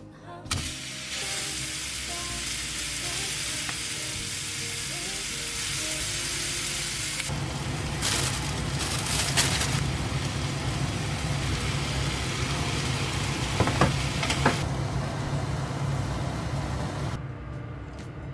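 Food frying in a pan: a steady sizzle that stops about three-quarters of the way through, with background music underneath.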